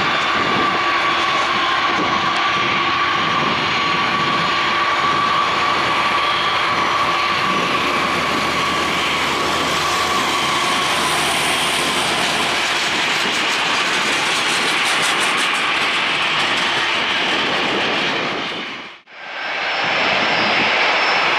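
Jet engines of a Boeing 737-600 running loud and steady as the airliner lands and rolls out, with a steady engine whine over the noise for the first half. The sound dips out briefly near the end, then the engine noise comes back.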